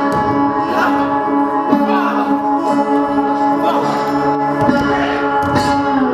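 Live guitar music: layered, sustained ringing notes forming a drone, with new plucked notes struck at irregular intervals over it.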